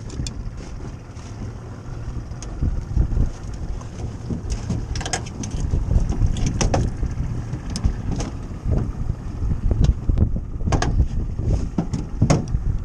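Wind buffeting the microphone in a low, uneven rumble, with scattered sharp knocks and clatters on the boat as a snagged paddlefish is lifted aboard.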